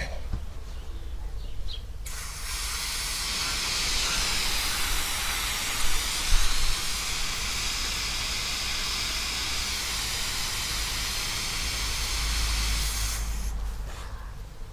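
Leftover LPG venting from the valve of an upside-down Gaspol gas cylinder: a loud, steady hiss of liquid gas spraying out and flashing into a white cloud. It starts suddenly about two seconds in and dies away near the end as the cylinder empties.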